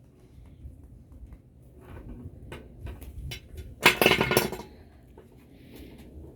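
Hand wire stripper working on 10 gauge stranded copper wire: light clicks and taps as the tool and wire are handled, then a louder scraping snap about four seconds in, lasting under a second, as the jaws bite and the insulation is pulled off.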